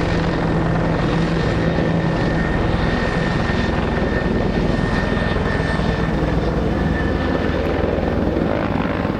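Firefighting helicopter flying overhead, loud and steady, with the chop of its rotor and a thin high turbine whine.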